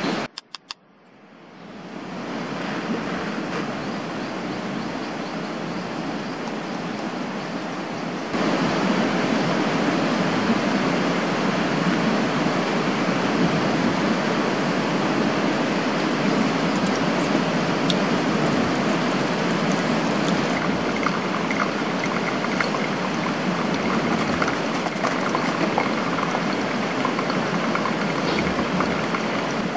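Steady rush of a shallow rocky stream flowing over stones. The sound drops out for a moment at the start, then comes back and gets louder about eight seconds in.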